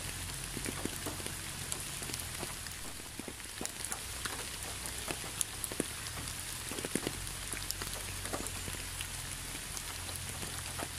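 Steady rain falling, an even hiss with individual drops striking close by at irregular moments.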